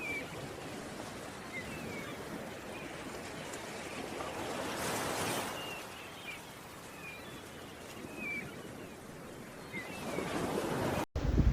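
Sea surf washing on the shore, a steady rush that swells about halfway through and again near the end, with short faint high chirps scattered through it.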